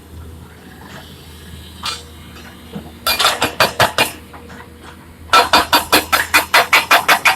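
Rapid, regular metallic knocking from heavy machinery, about four to five strikes a second, over a low steady hum. A short burst comes about three seconds in, and the knocking resumes and keeps going from about two seconds before the end.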